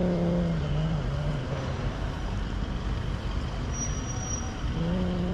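Street traffic rumbling, with a low engine drone that steps down in pitch, heard twice: at the start and again near the end.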